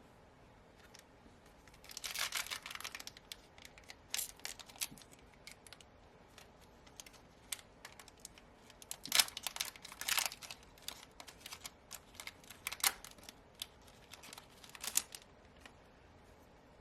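A trading-card booster pack's foil wrapper being torn open and crinkled, with the cards slid out and handled, heard as several short spells of crackling and clicking.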